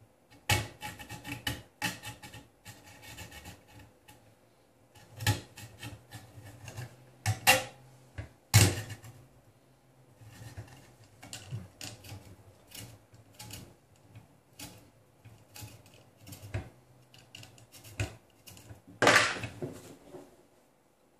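Irregular clicks, taps and light rattles of small metal hardware being handled by hand: M3 bolts, springs and nuts fitted through a PCB heatbed into the aluminium bed plate. There is a sharper knock about eight and a half seconds in and a longer clatter near the end.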